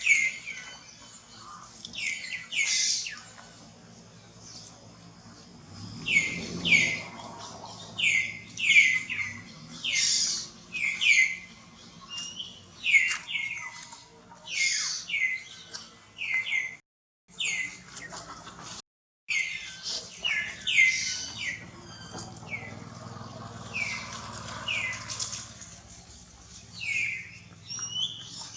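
Baby monkey crying: a long series of short, high-pitched calls, each sliding downward in pitch, coming one after another. The run is broken by two brief dropouts near the middle.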